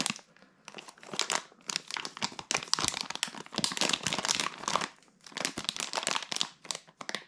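Plastic foil wrapper of a sealed water-filter cartridge crinkling as it is handled and turned in the hands, in irregular spells with brief pauses about a second in and again around five seconds in.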